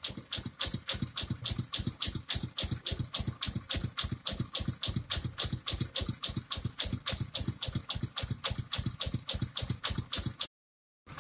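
Mobile rice milling machine running: its engine and mill make an even, rapid thumping of about six or seven beats a second. The sound cuts out for a moment near the end, then resumes.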